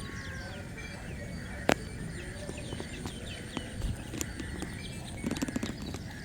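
Background birds chirping: many short, quick, downward-sliding calls over a steady high-pitched whine. A single sharp click comes about a second and a half in, and a quick rattle of clicks comes past the five-second mark.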